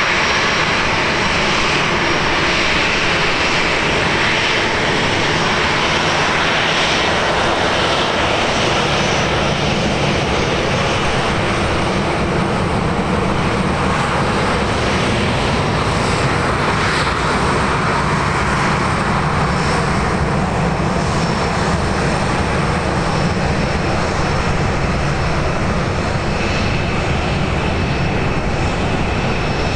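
Airliner engines running loud and steady, heard close by; a thin high whine comes in over the roar partway through.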